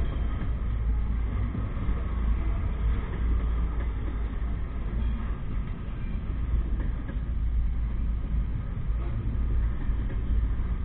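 Double-stack intermodal freight train's well cars rolling slowly past: a steady, deep rumble of steel wheels on the rails, with a few faint knocks.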